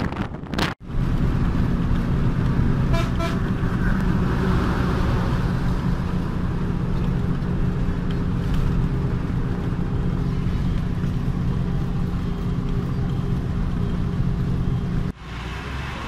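A bus's engine running at speed, with road noise, heard from inside the moving bus. A vehicle horn toots briefly about three seconds in.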